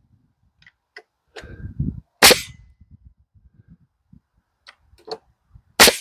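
Framing nailer driving 3¼-inch nails into rough-sawn lumber: two sharp shots, one about two seconds in and one near the end, with light knocks from the tool being set against the board before the first.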